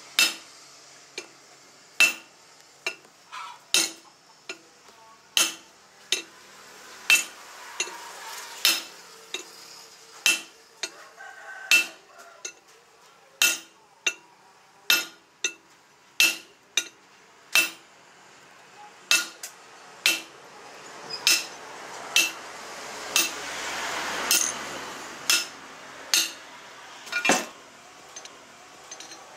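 Hand hammer striking a steel rebar bar on a small steel post anvil: single metallic blows with a short ring, about one a second and unevenly spaced. A rushing noise swells and fades about three-quarters of the way through.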